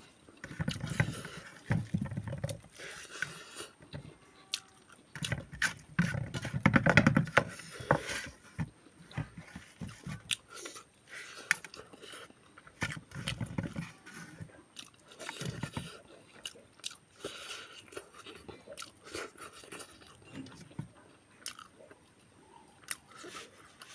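Close-up eating sounds: a person chewing and biting food, with irregular sharp mouth clicks, heaviest in two stretches in the first half.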